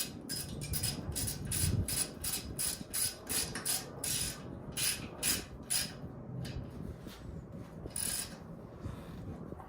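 Ratchet wrench clicking in quick strokes, about three clicks a second, as the lower rear-shock mounting bolt is tightened down; the clicking thins out and stops near the end.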